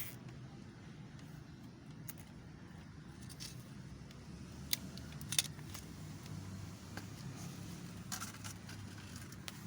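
A few sharp clicks and light metallic rattles of small objects being handled, over a low steady background rumble.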